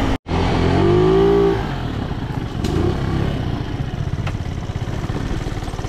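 50cc moped engine running under way. About a second in, its pitch rises and falls with the throttle, then it settles into a steady rough drone.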